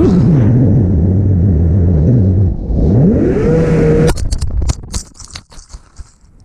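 FPV quadcopter's brushless motors whining, their pitch dipping and rising with the throttle. About four seconds in the drone crashes: a sudden burst of clattering and scraping impacts, after which the motors sputter and die down.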